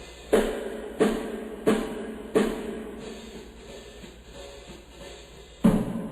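Drum beats: four heavy strikes about 0.7 s apart, each ringing out briefly, then a pause and one more strike near the end.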